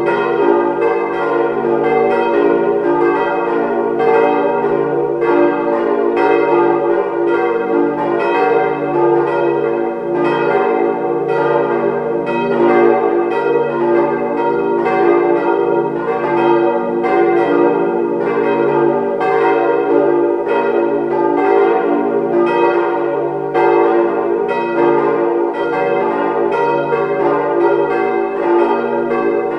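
Four 1949 Weule hard-cast-iron church bells, tuned d', f', g' and b', ringing together, their strokes overlapping in a continuous peal. The bells' strike tones are badly out of line with one another, a sign of their worn-out state.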